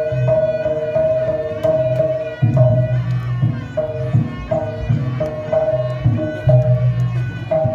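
Javanese jaranan gamelan-style music with drums: a short, high pitched note repeats about every half second over low pitched drum strokes in a steady rhythm.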